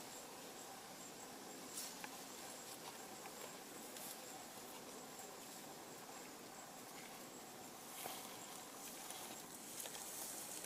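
Quiet outdoor ambience: a faint even hiss with a thin, steady high-pitched tone, and a few soft ticks now and then.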